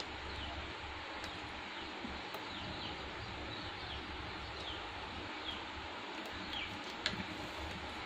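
Small birds chirping in the background: short, quickly falling chirps repeated every second or so over a steady hiss. A single sharp click comes about seven seconds in.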